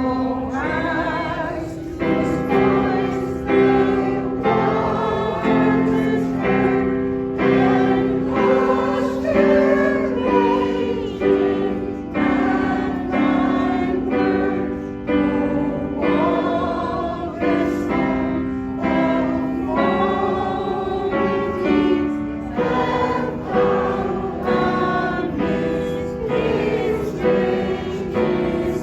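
Choir singing a song, held notes in phrases with brief breaks between lines.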